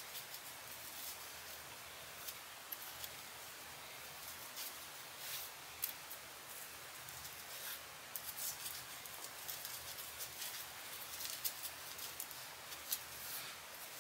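Faint rustling with scattered small ticks and crackles as braids of synthetic braiding hair are handled and wound onto small perm rods to curl the ends.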